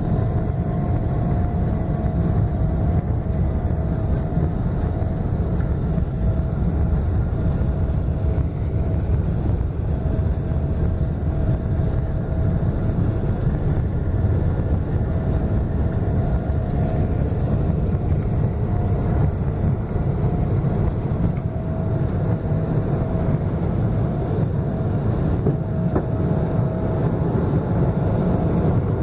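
Boeing 777-200LR jet engines at takeoff thrust, heard inside the cabin over the wing: a steady, loud, deep rumble with a thin steady whine above it, through the takeoff roll and liftoff.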